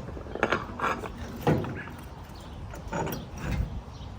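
Small metal parts clicking and clanking a few separate times as spacers and bushings are handled and tried on a steel wheel axle.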